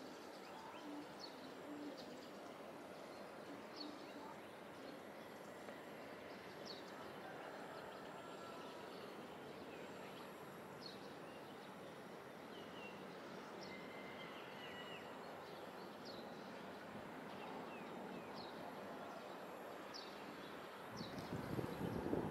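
Faint steady background hum with short bird chirps every second or two. About a second before the end, a jet aircraft's engine noise rises sharply as the plane comes near.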